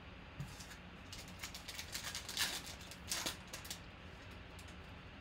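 Wrapper of a Panini Prizm football card pack crinkling and tearing as it is opened by hand: a run of sharp crackles lasting about three seconds in the middle, after a small click near the start.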